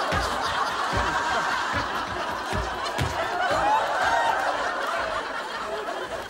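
Studio audience laughing over a row of heavy thumps about once a second, a man skipping rope on the floor above, heard through the ceiling.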